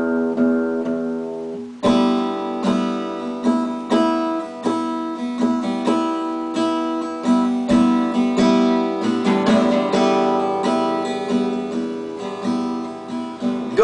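Acoustic guitar played solo between sung verses: one chord is left ringing and fading for about the first two seconds, then strummed chords and picked notes follow in a steady rhythm.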